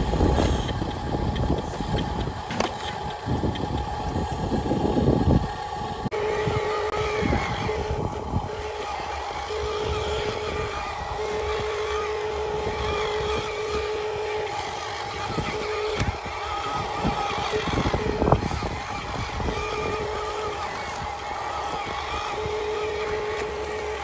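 Radio-controlled dump truck: a loud rumble and rattle of soil tipping out of its raised bed for the first five seconds or so, then a steady whine from its electric drive motor and gearbox, with a second tone coming and going in stretches, as the truck drives along.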